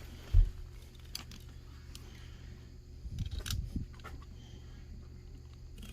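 Razor knife cutting the excess window-screen mesh along the spline groove: a few faint clicks and scrapes. A dull thump about half a second in is the loudest sound.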